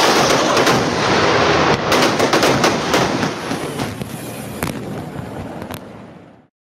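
A dense, loud rumble gives way about two seconds in to a run of sharp crackling pops from fireworks. The pops thin out and fade, and the sound cuts off just before the end.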